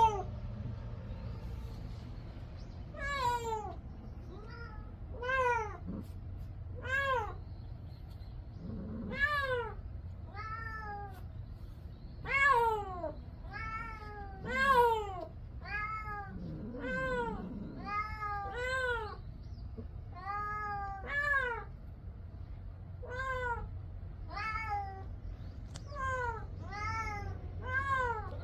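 Domestic cat meowing over and over, about twenty meows, roughly one a second, each rising then falling in pitch.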